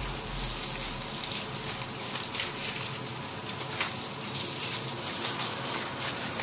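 Hot glazed spareribs and their juices sizzling in aluminium foil in an air fryer basket: a steady hiss with scattered small crackles.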